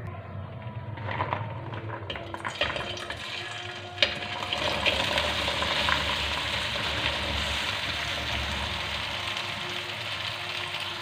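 Mustard oil crackling lightly in a hot aluminium karahi, then chopped okra tipped in from about four seconds in, after which the oil sizzles steadily as the okra starts to fry.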